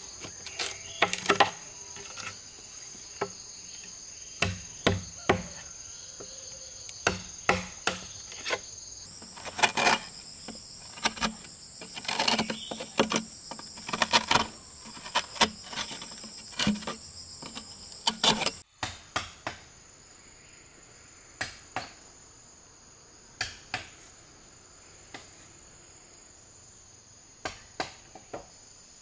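A wooden club striking a chisel, cutting a rectangular hole into a bamboo pole: sharp knocks in irregular runs, fewer in the last third. A steady high insect chorus runs underneath.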